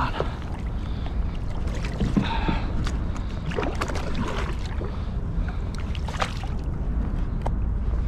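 Kayak sounds on the water: a steady low wind rumble on the microphone with water against the hull. Scattered short clicks and knocks are heard throughout.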